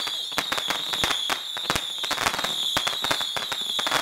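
Fireworks and firecrackers going off: a rapid, irregular string of sharp bangs and cracks over a steady high-pitched whine.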